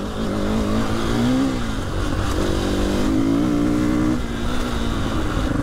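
Dirt bike engine running under throttle: the revs rise and fall about a second in, hold fairly steady, then drop away about four seconds in.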